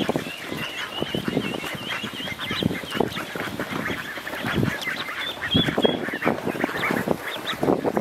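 A group of ducklings peeping rapidly with short, high calls while they peck at feed in a plastic tub. Many quick soft taps from their bills run beneath the peeps.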